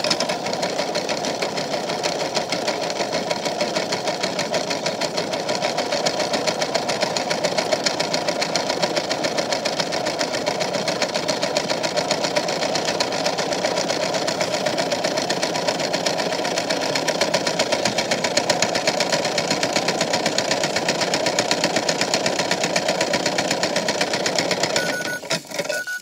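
Toy washing machine's small electric motor spinning the drum, with a rock and small plastic beads rattling steadily inside it. It stops about a second before the end.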